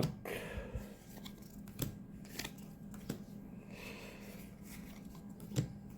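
Magic: The Gathering trading cards being handled, with soft rustles and scattered light clicks as the cards slide and tap against each other.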